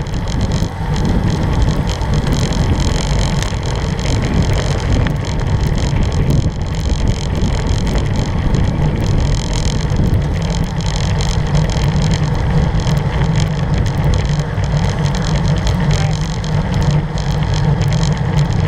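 Steady wind rush and road rumble from riding a road bike on asphalt, picked up by a bike-mounted camera's microphone; a deep, even rumble with a hiss on top.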